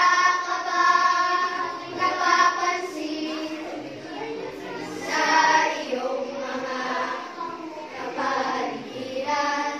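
A song playing: a group of voices singing together in long, held phrases.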